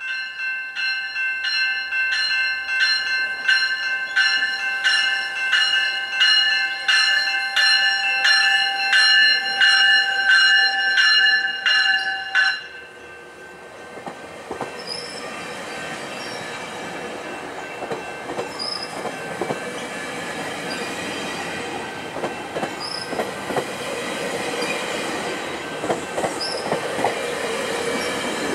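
Level-crossing warning bell ringing in even strokes, about three every two seconds, cutting off abruptly about twelve seconds in. Then GO Transit double-deck coaches roll past close by, wheels clacking on the rails, with short high wheel squeals every few seconds.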